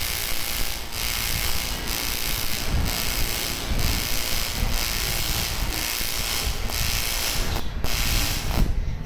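AC TIG welding arc on aluminium, a steady harsh buzzing hiss with a slight regular pulsing, broken off briefly near the end before restarting.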